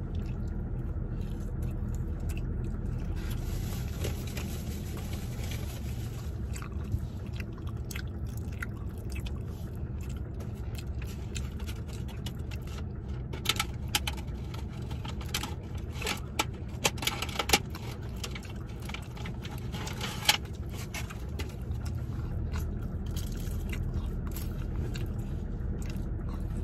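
Close-up chewing and mouth sounds of someone eating fried street-food balls, with a cluster of sharp clicks in the middle, over a steady low hum in the car cabin.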